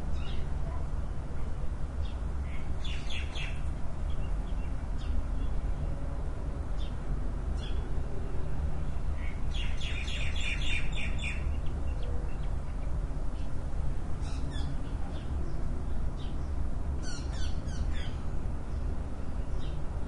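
Outdoor morning bird chorus: small birds chirping in scattered short bursts, with a busier run of twittering about halfway through, over a steady low rumble.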